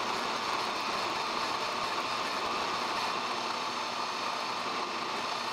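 Grizzly G0750G gunsmithing lathe running under cut: the spinning workpiece is turned to a taper by a carbide insert fed in with the compound. A steady machining noise.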